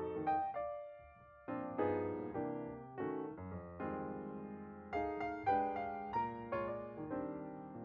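Intro background music: a piano playing a melody over chords, with a brief lull about a second in before the notes resume.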